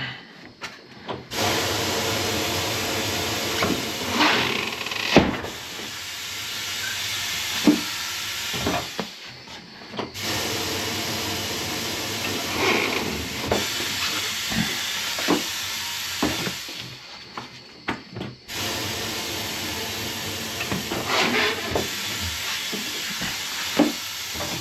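Pneumatic bead breaker on a Mayflower 950 tire changing machine hissing with compressed air in three long bursts, the pedal held down each time as the arm presses the motorcycle tire's bead off the rim, with scattered knocks and pops as the bead breaks loose.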